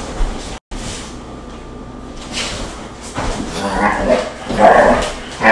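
Belgian Malinois barking in rough play, with a few loud barks in the last two seconds.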